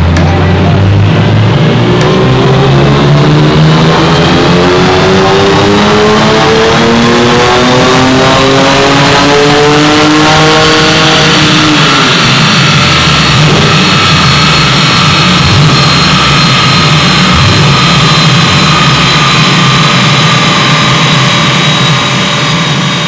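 BMW E46 M3's S54 3.2-litre straight-six making a full-throttle power run on a chassis dyno: the engine note climbs steadily through the revs for about eleven seconds, then the throttle closes and the note drops away. A high whine carries on, slowly falling, as the car coasts down on the rollers.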